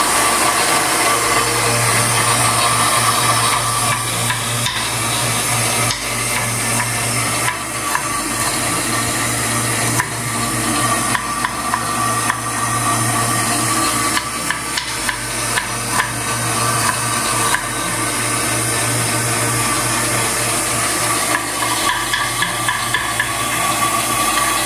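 Kitchen knife chopping red onion on a wooden cutting board: quick, irregular taps from about ten seconds in to near the end. Under it runs a steady motor hum.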